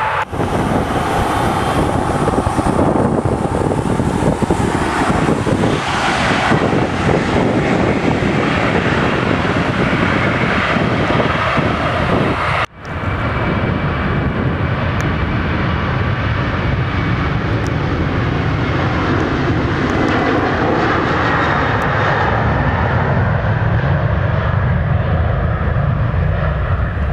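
Jet engine roar from a CRJ regional jet on the runway. After a short break about halfway, a Boeing 737's twin jet engines run at takeoff thrust as it rolls down the runway and lifts off.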